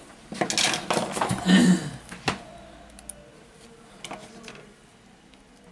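Hands handling things on a repair bench: rustling and clattering over the first two seconds, ending in a sharp click, then a few faint clicks as the phone is picked up.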